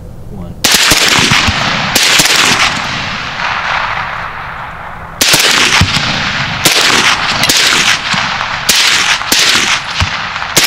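Two AR-style rifles firing a string of loud shots. Two shots come in the first two seconds, each trailing off slowly, then after a pause a quicker run of shots about a second or less apart from about five seconds in.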